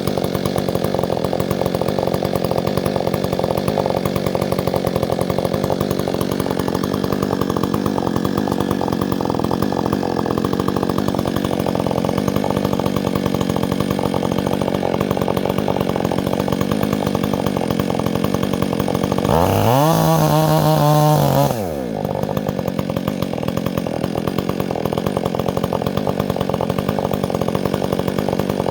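Chainsaw running steadily, then revved sharply to full throttle about two-thirds of the way through, held high for about two seconds, and dropped back suddenly.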